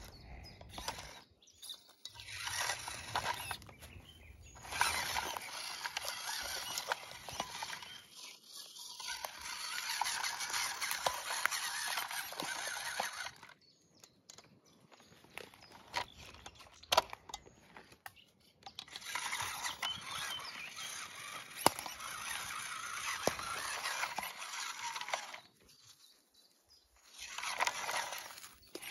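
Small electric RC crawler truck whirring in stop-and-start stretches as its motor and gears drive it along a bark-covered fallen trunk, with small clicks and crackles of its tyres on the bark. There are three longer runs with pauses between.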